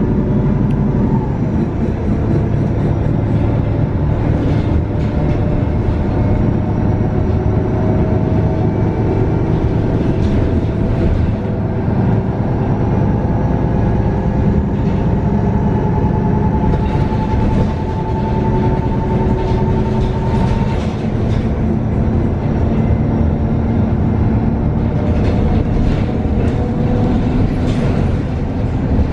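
Cabin ride noise of a 2019 Nova Bus LFS CNG transit bus under way: the steady rumble of its Cummins L9N natural-gas engine and drivetrain, with a whine that slowly rises and falls in pitch. Bursts of rattling come in several spells through the stretch.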